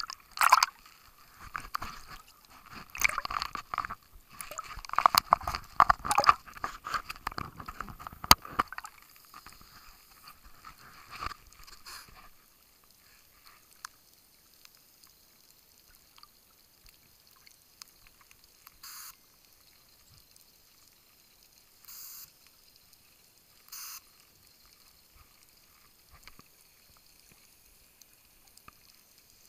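Water splashing and sloshing against a dive camera at the surface, loud and irregular with sharp clicks, for about the first nine seconds, then a couple of smaller splashes. After that the sound turns muffled and quiet underwater, broken by three short hissing sounds.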